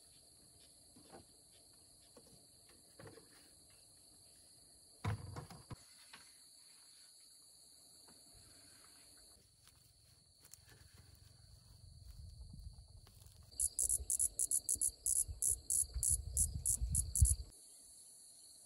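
Insects drone steadily in high, even tones. Near the end a louder pulsed insect call comes in at about four pulses a second, over a low rumble. A few soft knocks come early on, with a sharper knock about five seconds in.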